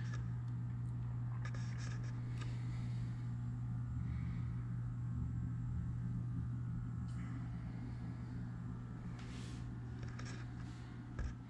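A steady low hum, with a few faint clicks and rustles over it.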